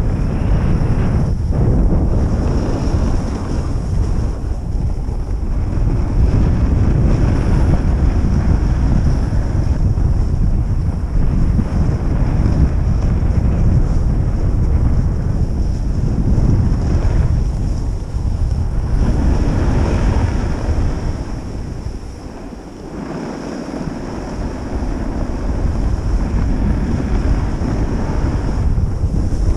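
Wind rushing over the microphone of a camera moving downhill on skis: a loud, steady rumble that eases for a few seconds about three-quarters of the way through.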